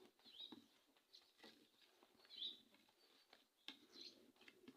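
Near silence: soft patting of hands pressing dough together, with a few faint, short bird chirps.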